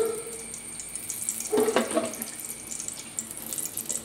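Cooking oil heating in a frying pan, crackling and spitting faintly. A short pitched sound comes about one and a half seconds in.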